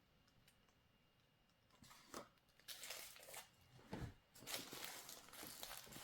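Faint rustling and clicks of small toy packaging being handled, after about two seconds of near silence.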